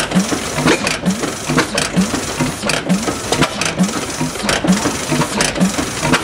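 1912 Reid 15 HP two-stroke oilfield engine running steadily at slow speed, a regular beat a little more than once a second, with lighter clicks between the beats.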